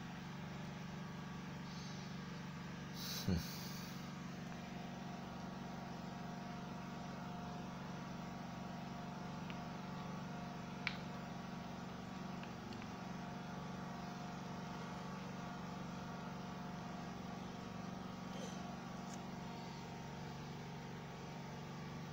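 A steady low mechanical hum with a few constant pitched tones in it, broken by a sharp knock about three seconds in and a smaller click near the eleven-second mark.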